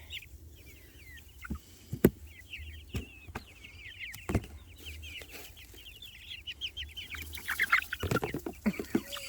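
A flock of young Jersey Giant chickens peeping, many short, high, falling chirps overlapping, with a few sharp taps. The peeping grows busier and louder near the end.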